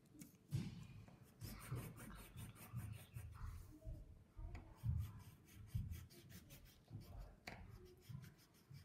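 Colored pencil scratching on paper in short, irregular strokes.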